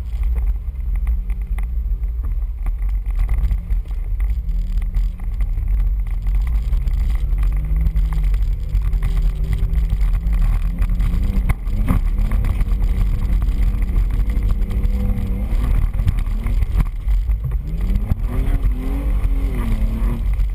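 Off-road 4x4's engine running as it drives a dirt trail, its pitch rising and falling with the throttle, over a heavy low rumble of wind and rough ground on the hood-mounted microphone. A single sharp knock about halfway through.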